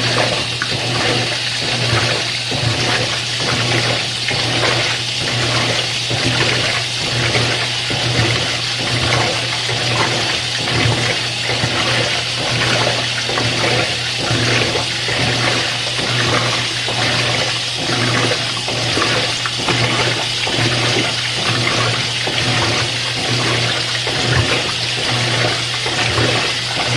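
Washing machine filling with cold water: a steady rush of water pouring into the tub, with a constant low hum beneath it.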